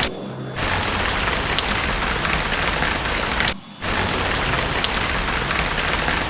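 Steady heavy rain with a low rumble beneath it. The track drops out abruptly twice, for about half a second at the start and for a moment a little past halfway, like splices in a looped recording.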